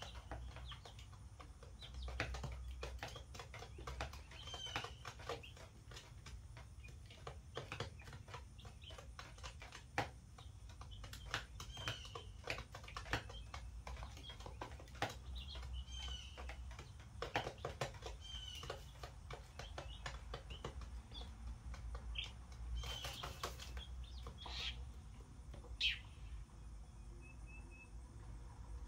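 Young chickens a couple of weeks old peeping now and then, with short high calls scattered through, amid many small clicks of scratching and pecking and brief wing flutters. There is a steady low hum underneath.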